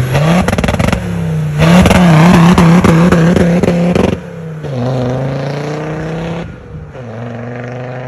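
Td5 five-cylinder turbo diesel in a Land Rover Series 1, revving hard with a crackling, popping exhaust. It then pulls away, its pitch rising twice with a drop between, as in a gear change, and gets quieter as it drives off.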